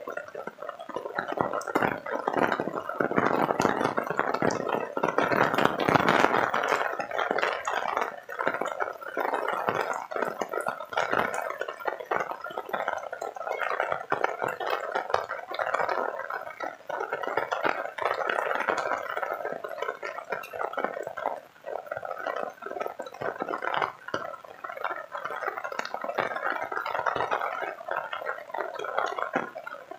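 Heavy rain falling, a dense, uneven patter of drops close to the microphone that swells and eases throughout.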